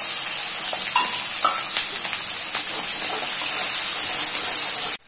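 Sliced shallots, green chillies and curry leaves sizzling steadily in hot oil in a wok, stirred with a metal spatula. The sizzle cuts off suddenly near the end.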